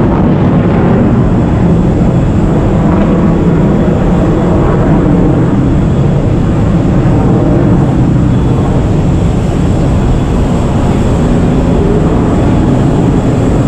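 Loud, steady low rumble and hiss of aircraft noise, even throughout, with a faint thin high tone above it.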